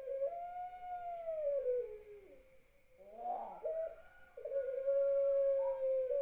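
Puter pelung dove, a long-cooing domestic collared dove, giving drawn-out coos. The first coo arches up and falls away over about two seconds. The second begins about three seconds in and settles into a long, steady held note near the end.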